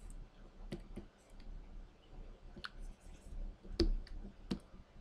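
About half a dozen faint, sharp clicks and taps at irregular intervals, the loudest a little before four seconds in, from a digital artist's stylus and shortcut keys at a Wacom Cintiq 24HD pen display.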